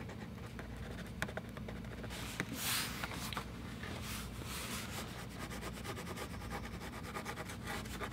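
China marker (grease pencil) scraping across drawing paper in quick, short back-and-forth strokes, coming faster in the second half.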